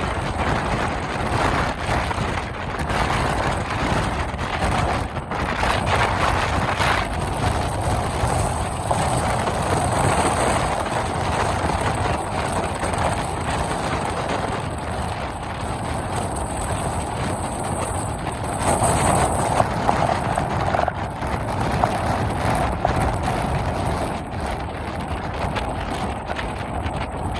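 Wind buffeting the microphone: a steady, uneven rumble with gusts that swell and ease.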